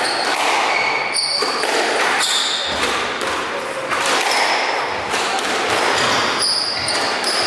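Squash rally: the ball struck by rackets and smacking off the court walls in quick irregular hits, with short high squeaks of players' shoes on the wooden court floor.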